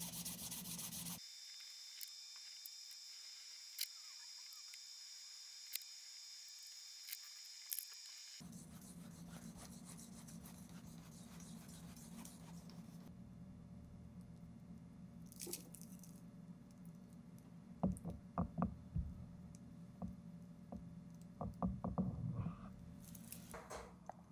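Sandpaper rubbed by hand over a knife handle, a dry scratching hiss for about a second, then faint scattered clicks and knocks, clustered in two groups past the middle.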